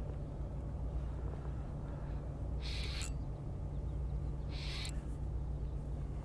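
Spinning reel being wound in against a hooked fish that bends the rod hard, with a steady low rumble underneath. Two short hissy bursts come, one about two and a half seconds in and one about four and a half seconds in.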